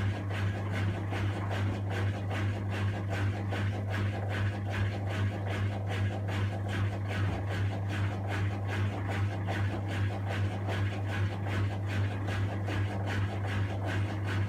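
Miele Novotronic W1613 front-loading washing machine turning its drum at low distribution speed with a single towel, a steady low hum with an even pulse about three times a second. The machine is trying to balance an off-balance load before it will spin up.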